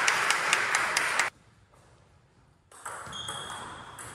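Table tennis ball clicking off bats and table against loud hall noise. It cuts off suddenly about a second in, and after a moment of silence quieter hall sounds return.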